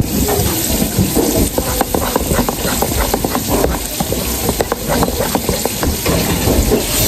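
Pancake batter stirred with a plastic spatula in a metal bowl: a run of quick scraping and clicking strokes against the bowl, over a steady hiss. The stirring stops near the end.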